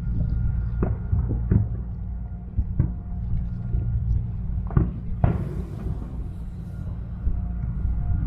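Aerial firework shells bursting across the water: a string of sharp bangs, about five, the loudest about five seconds in, over a steady low rumble.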